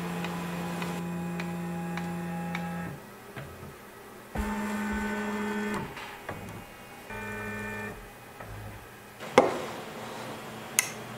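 CNC router stepper motors whining at a steady pitch in three separate moves, each at a different pitch as the axis speed changes, as in a homing sequence. Two sharp knocks come near the end.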